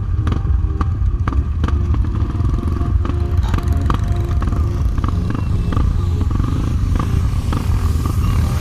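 Trail motorcycle running with a steady low rumble over rough ground, with frequent short knocks and clatter.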